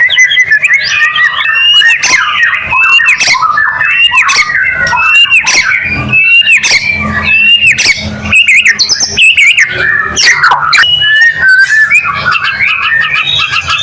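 White-rumped shama singing continuously in full song: a fast, unbroken run of loud, varied whistles, up-and-down slurs and sharp clicking chatter notes.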